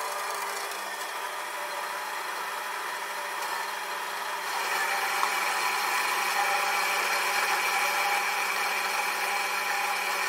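A power metal-cutting saw running steadily while cutting a section off 50 mm round bar stock, growing a little louder about four and a half seconds in.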